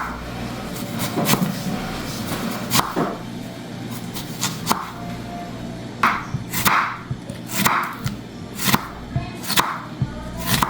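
Knife chopping an onion on a cutting board, sharp single strokes about once a second, over background music.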